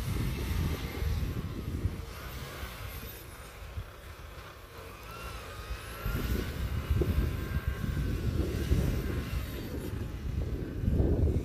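Wind buffeting the microphone over the distant engine of a Haval H9 SUV crawling through soft desert sand, its pitch sliding up and down faintly. The rumble eases for a few seconds in the middle and comes back about six seconds in.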